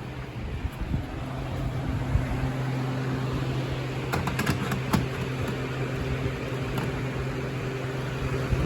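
Electric fans running with a steady low hum that grows a little louder about a second in, and a few sharp clicks about halfway through as the smoke alarm is handled.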